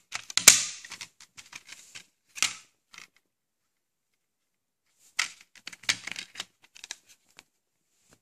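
Clicks and plastic rattles of a Blu-ray case as the discs are pressed off their centre hubs and lifted out, in two bursts with a pause of about two seconds between them; the sharpest click comes about half a second in.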